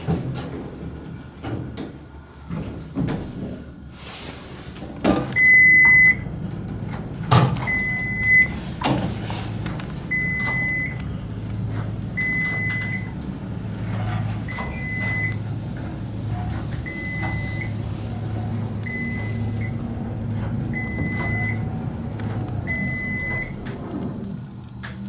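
Dover/Lagerquist traction elevator car closing its door and travelling up. After a few clicks and knocks, a short high electronic beep sounds about every two seconds, nine times, one for each floor passed. Under the beeps runs the low steady hum of the car in motion.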